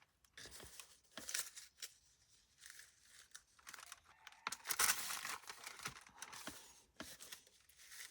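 Paper rustling and crinkling in irregular handling noises, loudest about five seconds in: small cut-out magazine letters being sifted by hand and slipped into a paper envelope.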